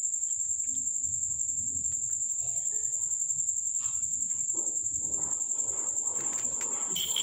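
Cricket trilling: one continuous high-pitched tone that never breaks.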